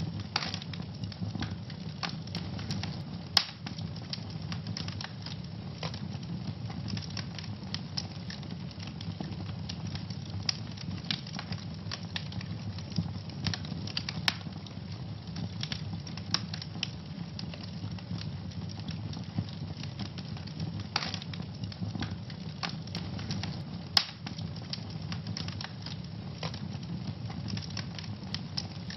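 Wood fire burning in a fireplace, crackling and popping steadily over a low rumble, with a few louder pops, the sharpest a little over three seconds in and near 24 seconds in.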